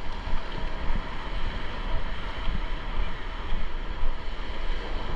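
Ocean surf washing ashore in a steady wash of noise, with gusting wind buffeting the microphone.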